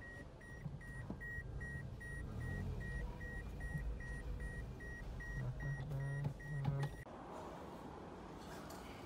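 A car's electronic warning beeper sounding in the cabin, a high beep repeating evenly about two and a half times a second over a low engine rumble. It stops suddenly about seven seconds in, giving way to a steady hiss.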